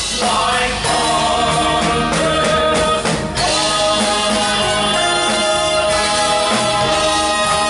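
Live music: a male vocal trio singing with a backing band, settling into long held notes about halfway through.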